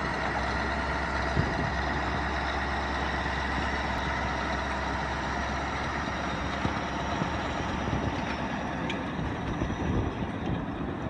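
A 1995 Caterpillar D9R crawler dozer's diesel engine running steadily with a deep, even rumble.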